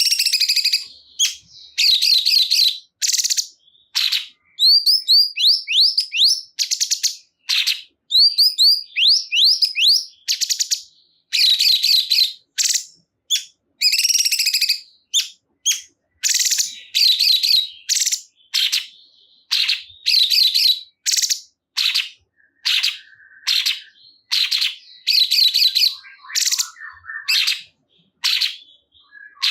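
Cungkok songbird singing a loud, fast run of high chirps and whistled notes, phrase after phrase with brief gaps between them.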